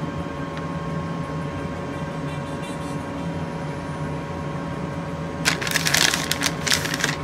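Steady faint electrical hum. About five and a half seconds in comes a second and a half of crinkly rustling as shredded cheese is handled.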